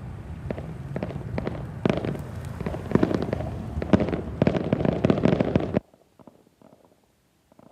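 Fireworks display going off: a dense run of bangs and crackling bursts over a low rumble, thickening toward the end, then cutting off suddenly about six seconds in, leaving only faint scattered pops.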